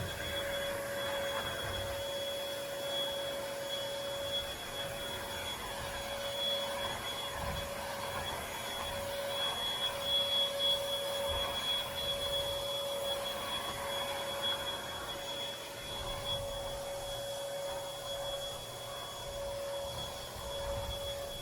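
Bissell Featherweight corded stick vacuum cleaner running while vacuuming an area rug: a steady motor whine of two held tones over a rushing of air.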